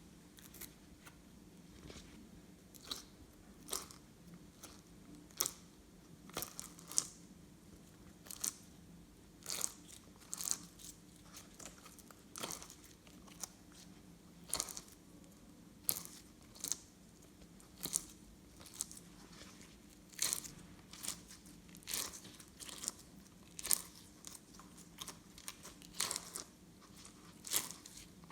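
Slime being pressed and worked by hand, giving sharp crackling pops and clicks at irregular intervals, roughly one a second. A faint steady low hum runs underneath.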